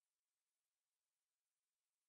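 Near silence: a dead gap between police radio transmissions.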